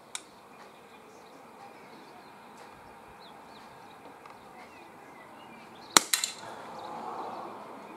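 A single shot from a Smith & Wesson M&P R8 CO2 revolver firing a pellet: one sharp crack about six seconds in, followed a fraction of a second later by a few quieter knocks as the pellet strikes the target and pellet trap. Faint birdsong in the background.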